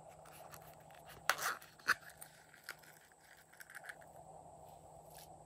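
A small plastic case handled by hand: two loud sharp clacks a little over a second in and about half a second later, then lighter ticks and scrapes.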